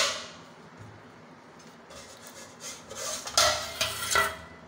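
Steel cookware clinking and clattering: a steel plate knocking against a steel kadhai, a few sharp metallic clinks with a brief ring about three to four seconds in, after a quiet stretch of faint hiss.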